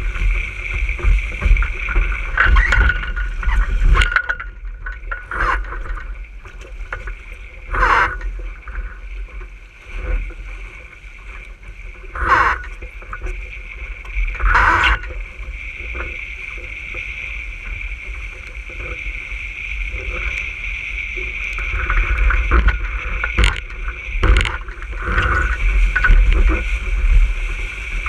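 Water rushing and slapping along the hull of an RS600 sailing dinghy moving at speed, with wind buffeting the camera microphone as a low rumble. Several louder splashes as the hull hits waves, the loudest about 8, 12 and 15 seconds in.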